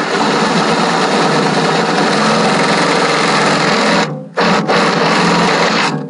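Cordless drill with a long twist bit boring a hole through the van's wall to the outside, running steadily at full speed. It stops briefly about four seconds in, then runs again and stops near the end.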